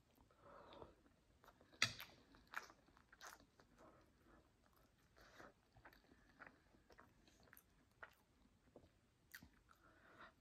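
Faint, close-miked eating: a person chewing a mouthful of coconut rice and jerk chicken, soft wet mouth sounds broken by scattered crisp clicks, the sharpest about two seconds in.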